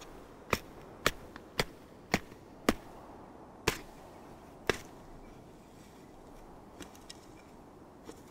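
Steel garden spade chopping into turf and soil to dig out a dandelion root: about eight sharp strikes, roughly two a second at first and then slower, stopping about five seconds in, with a few faint knocks near the end.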